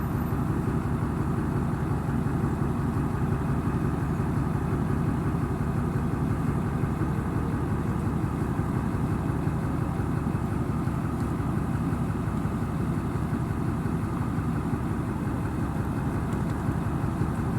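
Vehicle engine running steadily, an even low engine note.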